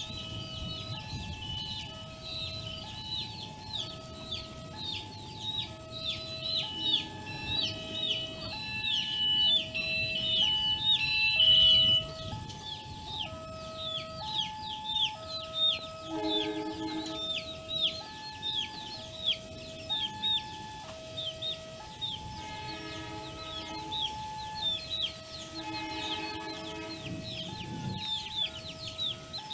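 Railway level-crossing alarm sounding a steady alternating two-note electronic chime, with many birds chirping rapidly over it.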